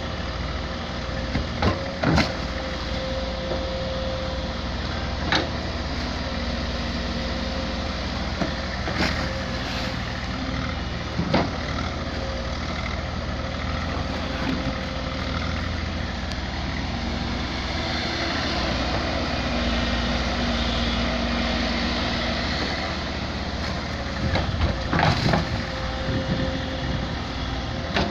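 SANY 140 excavator's diesel engine running steadily, with a few sharp knocks and clanks from the machine, several of them close together near the end.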